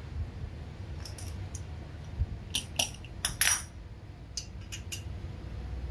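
Metal hand tools clinking against each other and the concrete floor as they are handled: a few scattered light clicks, then a quick cluster of sharp metallic clinks between about two and three and a half seconds in.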